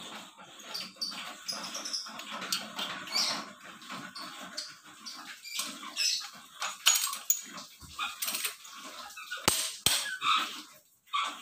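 Torque wrench working on the cylinder head bolts of a Mitsubishi L300 diesel engine: an irregular ratcheting rattle as the bolts are pulled tight, with several sharp clicks, two of them close together near the end.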